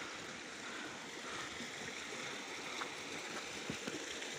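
Steady rushing of a small stream, with a few faint steps on dry leaves and dirt.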